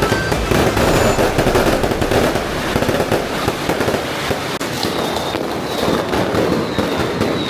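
Fireworks and firecrackers going off in rapid, unbroken succession, a dense continuous crackling and popping. A thin high whistle runs through the second half.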